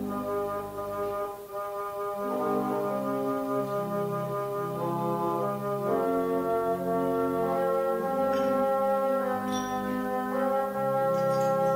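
Church organ playing slow sustained chords, held notes changing every second or two, with a brassy reed-like tone.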